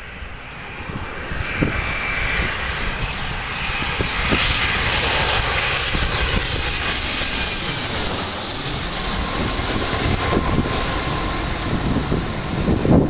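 Boeing 737-400 jet airliner's CFM56 turbofan engines as the plane approaches and passes. A rushing engine noise builds to its loudest about halfway through and then holds, with a faint whine sliding in pitch as it goes by.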